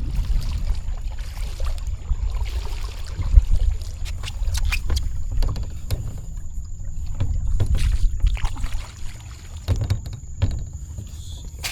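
Sounds of a sit-on-top fishing kayak on the water: a steady low wind rumble on the microphone, with scattered knocks and splashes against the boat.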